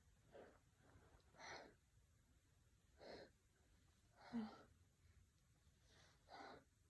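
A man's quiet, breathy breaths, about five of them a second or so apart, with the loudest about two-thirds of the way through carrying a brief voiced catch. His nose is irritated by chhinkni sneezing powder between sneezes.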